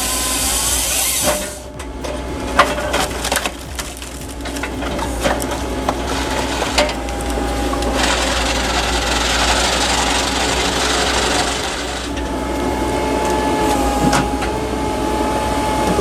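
Firewood processing machinery working logs: a steady mechanical noise with several sharp wooden knocks in the first half and a thin steady whine at times.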